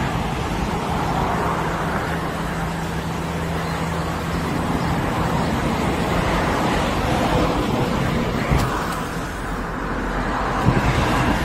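Steady outdoor background noise on a handheld phone's microphone, with a low hum in the first few seconds, a single sharp click about two-thirds of the way through and a few small knocks near the end.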